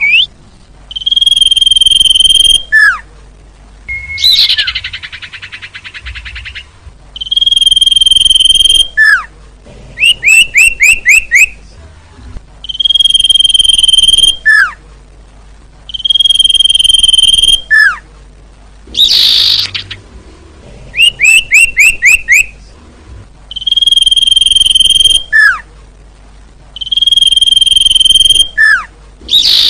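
A sirtu (cipoh) bird song, loud and repeated in a regular cycle. Long steady high whistles, each about a second and a half and ending in a quick falling note, alternate with fast runs of four or five short slurred notes. A harsh, buzzy chatter comes twice. This is a lure call played to attract wild sirtu.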